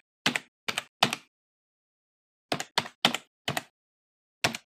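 Keyboard typing sound effect: single keystrokes struck one at a time, about eight in all, in uneven groups with a pause of over a second in the middle.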